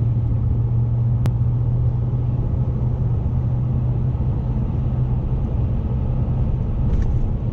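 Steady road and engine noise inside a moving car's cabin: a low, even drone with tyre hiss above it. A single sharp click sounds about a second in.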